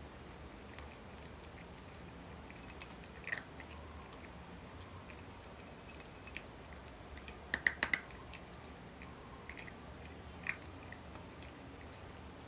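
Cat chewing dry kibble, with scattered sharp crunches and a quick run of about four loud crunches about halfway through.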